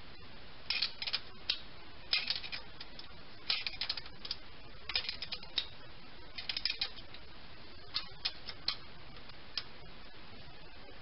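A ratchet wrench clicking in about seven short bursts with pauses between them, as it tightens the jam nut on a rocker-arm adjuster screw to lock in the valve lash.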